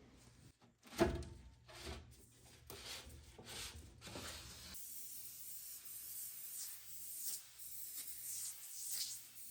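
A sharp knock about a second in and a few lighter knocks as things are handled, then from about halfway a surface being scrubbed in repeated rubbing strokes while cleaning.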